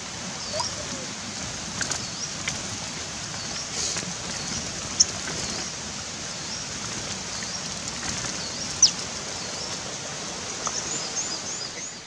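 Many small songbirds in a crowded wooden cage, giving short high chirps about once a second, quickening near the end, and fluttering against the bars, with two sharp clicks in the middle and a steady hiss underneath.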